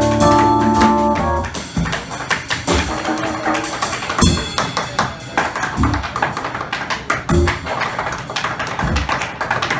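Tap shoes striking a hard stage floor in a rapid improvised rhythm of sharp clicks, with heavier thumps now and then. Music with sustained notes and bass stops about a second in, leaving the taps alone.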